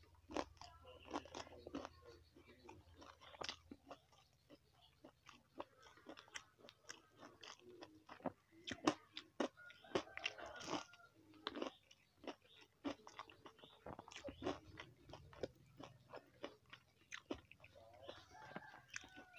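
Close-miked eating: a person biting and chewing crunchy food, with many sharp crunches at an uneven pace.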